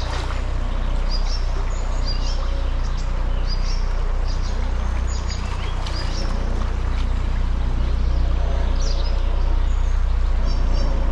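Steady rush of river water flowing over rocks, with a deep low rumble under it. Small birds chirp briefly every second or so.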